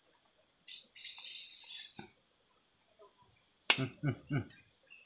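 Forest insects: a steady high-pitched drone, with a louder buzzing trill that starts about a second in and lasts about a second and a half. Near the end there is a sharp click, followed by a few short murmured syllables of a man's voice.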